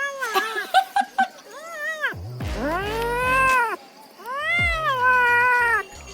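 Cat meowing repeatedly. First comes a run of short chirping meows, then two long, drawn-out meows that rise and fall in pitch.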